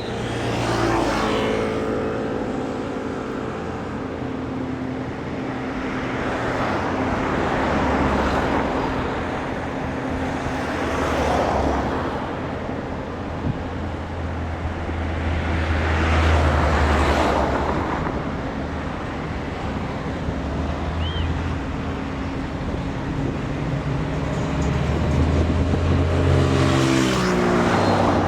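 A speedboat's engine and hull noise swells and fades several times as the unmanned boat circles at speed, with the engine pitch dropping as it sweeps past about a second in and again near the end.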